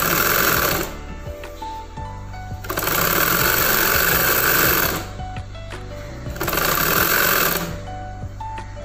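Sewing machine stitching in three runs: about a second at the start, about two seconds in the middle and about a second near the end, stopping in between while the fabric is repositioned.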